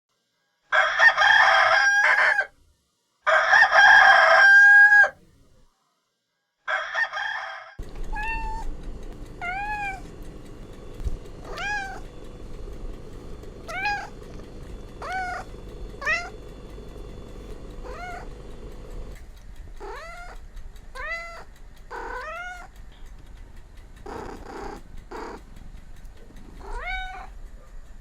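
A rooster crowing twice, loud, with a shorter call just after. From about eight seconds in, a cat meowing over and over in short calls, roughly one a second.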